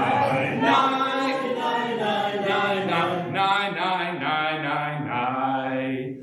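A congregation singing together the wordless 'nai nai' part of a Jewish niggun, many voices in unison in repeat-after-me style.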